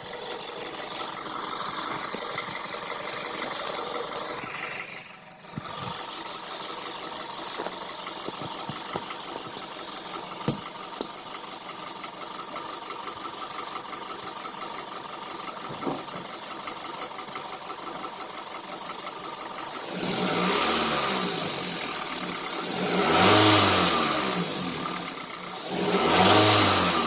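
Car engine idling with a rapid, steady ticking, a tick the owner can't place between a fuel injector and a valve lifter. Near the end the engine is revved up twice.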